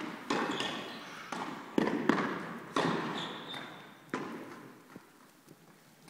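Tennis rally in an indoor hall: sharp pops of the ball off racket strings and off the court, each with a long echo. About six hits come in the first four seconds, irregularly spaced, then it goes quieter.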